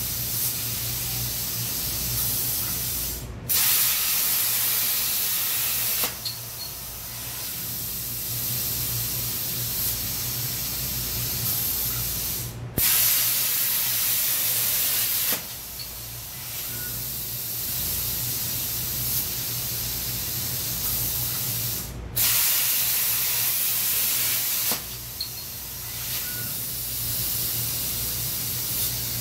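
CNC plasma cutter piercing and cutting round holes in thin aluminium sheet: three loud hissing cuts of about three seconds each, with a quieter steady hiss and a low hum between them.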